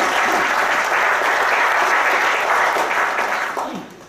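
Audience applauding; the applause dies away near the end.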